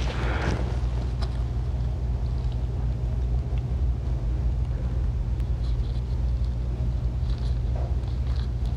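Steady low rumble, with a few faint light clicks as the clutch release fork in the transmission bellhousing is handled.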